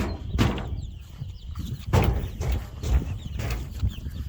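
Baby chicks peeping, many short high chirps, broken by several short knocks or rustles and over a steady low rumble.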